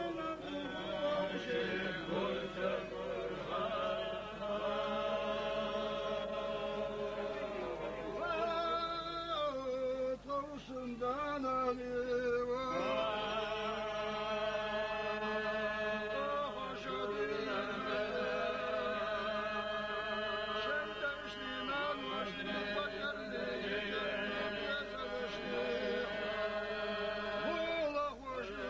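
Several men's voices chanting together, holding long drawn-out notes with slow rises and falls in pitch.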